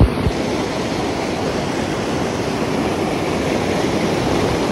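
Fast-flowing mountain river, the Yamuna, rushing over its bed: a steady, loud noise of moving water.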